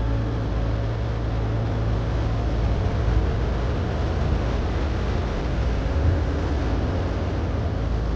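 Boat engine running steadily, a continuous low drone with a hiss of water and air over it.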